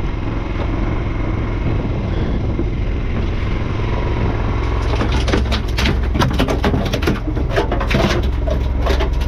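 Steady low hum of the fishing boat's engine. From about five seconds in, a cluster of sharp knocks and clatter sounds as a large eel is handled down into the boat's fish hold.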